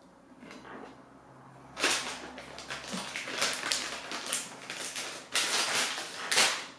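Plastic bag of shredded mozzarella crinkling and rustling as it is handled, starting about two seconds in in a quick run of crackles, loudest just before the end.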